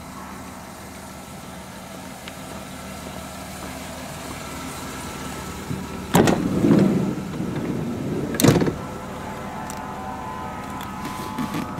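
1998 Plymouth Voyager minivan idling steadily. About six seconds in, the passenger-side front door handle is pulled and the door latch clacks open, followed by a rustle of handling. About two seconds later comes one more sharp clunk from the door.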